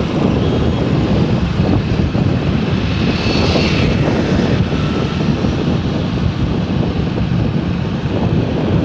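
Steady wind rush buffeting the microphone over the low rumble and road noise of the moving vehicle carrying it.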